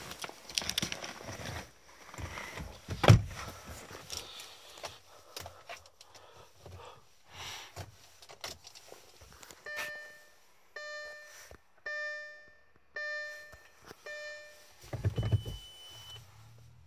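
A car door shutting with a single loud thunk about 3 s in, after some rustling. Then a chime sounds five times, about once a second, from the Audi A4's instrument cluster as the ignition comes on, and near the end the starter cranks the 2005 3.0 TDI V6 diesel briefly in −27.5 °C cold, with no preheating.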